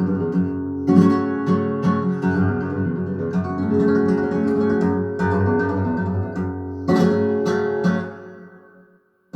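Acoustic guitar music with strummed chords and plucked notes. It fades out to silence shortly before the end.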